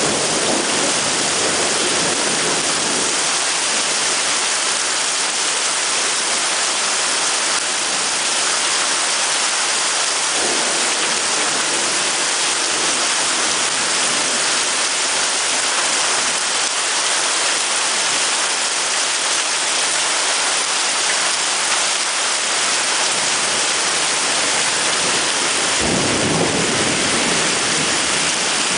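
Heavy thunderstorm rain pouring down steadily, a dense, even hiss. A low rumble of thunder comes in near the end.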